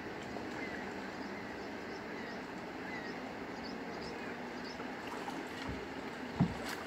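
Steady outdoor background hiss by the water with a few faint bird chirps. Near the end, dogs wading in the shallows make light splashing and clicking sounds, with a single thump about six seconds in as the loudest sound.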